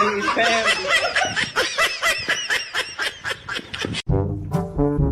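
Someone laughing hard in quick repeated high-pitched bursts, about four or five a second. The laughter cuts off suddenly about four seconds in, and brass music takes over.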